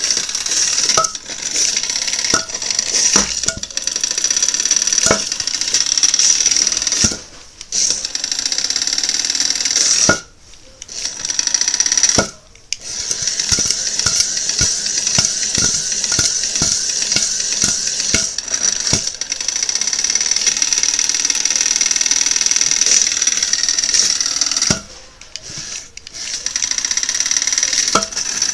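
The Hexbug BattleBots Tombstone toy robot's small electric motor makes a high whine as it spins a 3D-printed asymmetric blade, with frequent sharp clicks and knocks over it. The whine cuts out and comes back about four times. Near the end the blade strikes a foam block and flings it.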